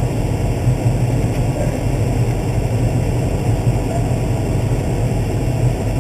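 Case IH 305 Magnum tractor's diesel engine running at a steady pace, a low even drone with no change in speed.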